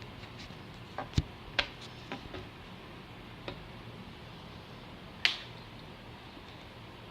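Handling of a new phone and its parts: a quick cluster of light clicks and taps, a single tap a little later, then one louder knock about five seconds in.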